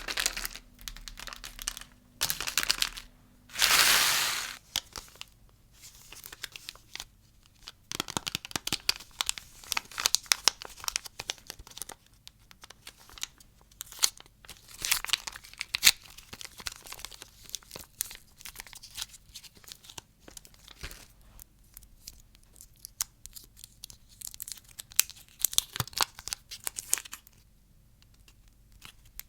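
Candy wrappers being torn open and crinkled, with a loud, drawn-out tear about four seconds in, followed by long stretches of crackly rustling and small snaps as the wrappers are handled.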